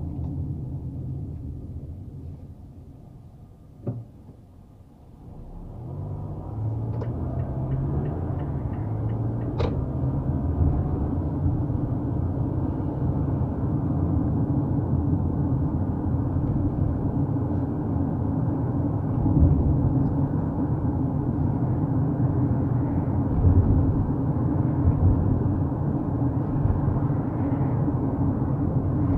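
Car engine and tyre rumble heard from inside the cabin of a moving car. The rumble dies down to a quiet spell a few seconds in, with a click, then builds back up as the car gets going. A sharp click comes near ten seconds, and the rumble holds steady after that.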